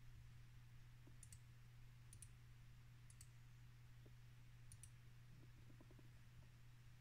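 Four faint computer-mouse clicks, each a quick press-and-release, spaced about a second apart, over a steady low hum.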